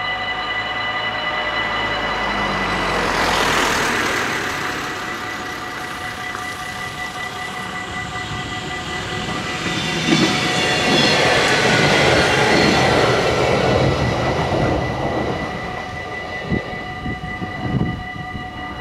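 Dutch level-crossing warning bells ringing steadily while a train approaches on the rails. Its rail and wheel noise swells twice, strongest in the middle, and a few sharp clicks come near the end.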